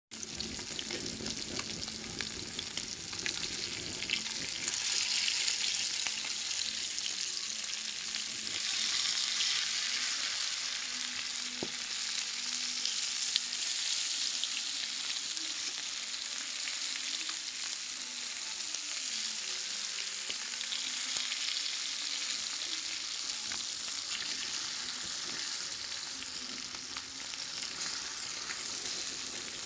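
Masala-coated fish pieces with curry leaves shallow-frying in hot oil, a steady sizzle and crackle that swells a little in the middle.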